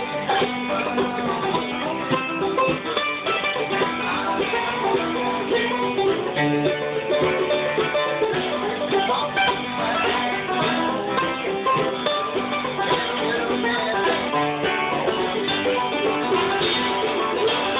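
An acoustic guitar and an F-style mandolin playing a bluegrass tune together, the plucked notes running without a break.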